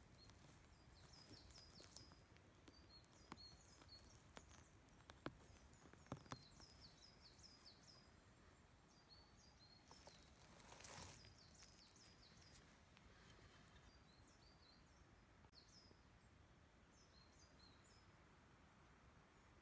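Faint birdsong: short, high chirps repeated in quick runs. A few soft clicks in the first six seconds and a brief rustle about eleven seconds in come from the porcini mushroom being picked out of the pine-needle litter by hand.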